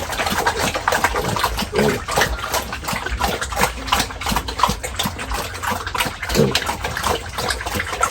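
Steady wet splashing and sloshing of water, with a couple of short low grunts about two and six seconds in.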